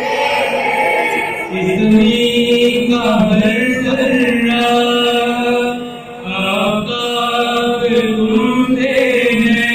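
A male lead singer and a mixed group of boys and girls singing an Urdu patriotic song together, in long held sung phrases, with a short break between phrases about six seconds in.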